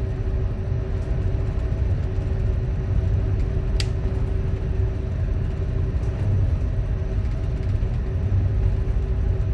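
Towboat's diesel engines running steadily under way, a low drone with a steady hum, heard aboard while pushing a tow of tank barges. One short click about four seconds in.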